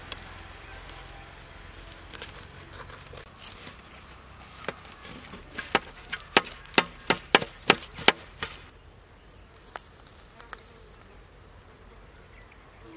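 A knife chopping into a large dried, salted seer fish: a quick run of about eight sharp strikes, about three a second, near the middle, with a few single strikes before and after. Insects buzz in the background.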